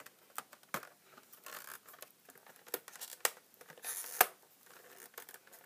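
Retail packaging being worked open by hand: scattered scrapes, rustles and light clicks, with a short rasping stretch that ends in a sharp click about four seconds in.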